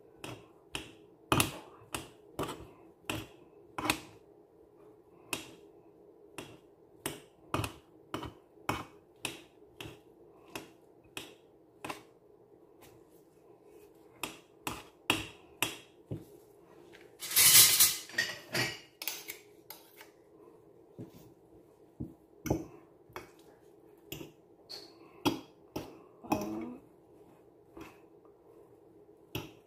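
Metal fork clicking against a ceramic bowl, about one to two strikes a second, while mashing and mixing a soft cheese filling. About halfway through comes one louder scrape lasting about a second.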